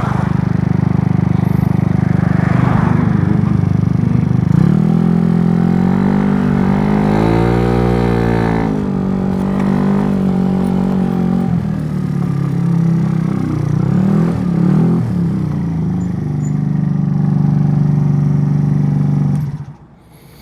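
GY6 scooter engine with an 88cc big bore kit and a Polini variator, running at high revs under way. Its pitch sags and swells for a few seconds about a quarter of the way in, then holds steady, and the engine sound falls away sharply just before the end. The rider finds these revs too high for a big bore kit on a stock crank.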